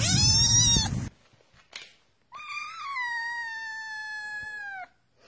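A black kitten gives a short meow over a low rumble. After a brief gap, a cream-coloured cat gives one long, drawn-out meow that droops in pitch at the end.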